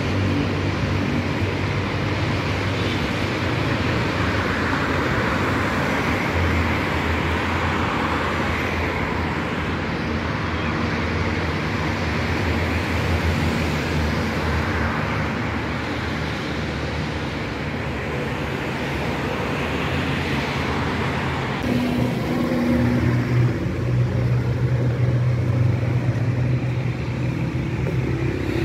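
Road traffic: cars driving by in a continuous wash of engine and tyre noise, with a nearer vehicle's engine growing louder near the end.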